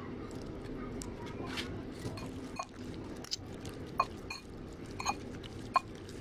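A metal spoon mixing a beef larb salad in a bowl: soft wet squishing and rustling, then sharp clinks of the spoon against the bowl, several in the second half, over a steady low hum.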